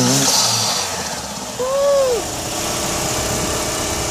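Turbocharged 2.4-litre four-cylinder engine of a Chrysler PT Cruiser running, louder for the first second and then settling to a steady idle. A brief whistle that rises and falls comes about two seconds in.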